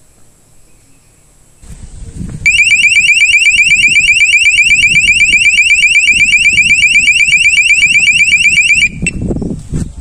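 Battery-powered motion-sensor burglar alarm set off, sounding a loud warbling siren: a rising chirp repeated about ten times a second. It starts about two and a half seconds in, runs about six seconds, then stops suddenly.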